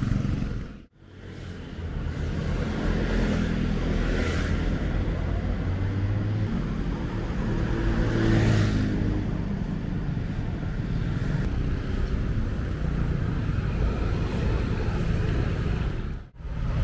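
Street traffic of cars and motorcycles running past, as a steady low rumble. One vehicle passes close about eight seconds in, swelling and then fading. The sound cuts out briefly near the start and again near the end.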